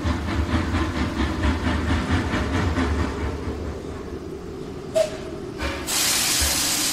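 Steam train pulling in: wheels clattering over rail joints with a low rumble, fading away, then a short squeal about five seconds in and a loud hiss of steam near the end as the train comes to a stop.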